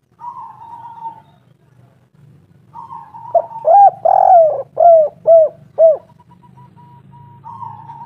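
Spotted dove cooing: a quick run of about five loud, arched coos, the middle one the longest, with fainter coos before and after. A low hum runs underneath.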